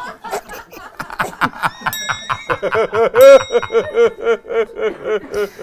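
Two men laughing hard in a rapid run of pitched, gasping pulses that peaks about three seconds in. A high ringing tone starts about two seconds in.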